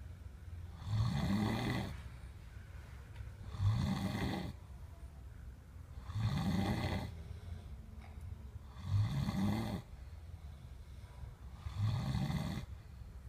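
A sleeping person snoring loudly and rhythmically, five rasping snores about every two and a half to three seconds, each a low rattling breath with quieter breathing in between.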